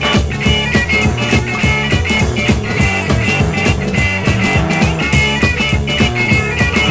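Electric blues band playing without vocals: two distorted electric guitars and a drum kit, with no bass.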